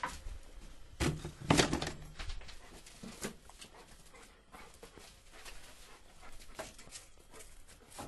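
Labrador retriever moving about and sniffing, with scattered clicks and scuffs and a burst of loud knocks and rustling about a second in.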